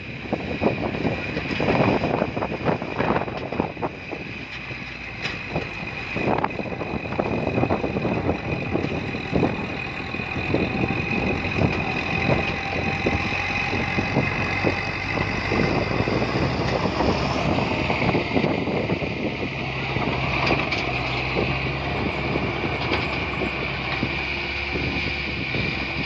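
Small Caterpillar crawler bulldozer at work pushing dirt: its diesel engine runs steadily under load while the tracks and blade clatter, with a steady high whine over it.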